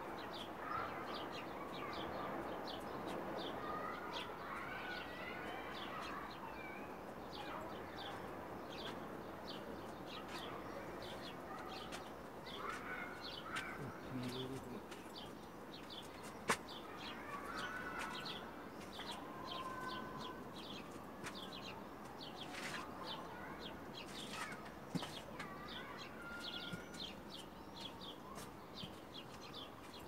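Small birds chirping over and over throughout, mixed with some short warbling calls, and a single sharp click about sixteen seconds in.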